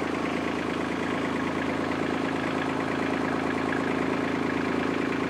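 Kubota compact tractor's diesel engine running steadily as the tractor creeps slowly forward.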